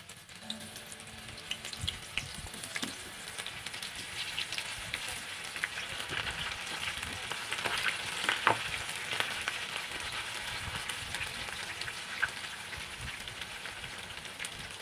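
Batter-coated bitter gourd slices frying in hot oil in a frying pan: a steady crackling sizzle dotted with small pops. It swells louder about halfway through, as more battered pieces are dropped into the oil.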